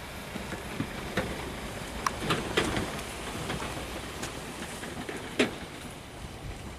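A passenger train running away down electrified track: a steady rumble of wheels on rail, easing slightly toward the end, with a few sharp clicks and squeaks, the loudest about five seconds in.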